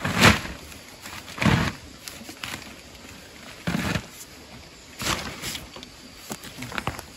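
A steel shovel scraping into loose, damp soil and dumping it against the foot of the pavilion wall, backfilling the trench that holds the plastic sheeting down. About six strokes, roughly a second apart.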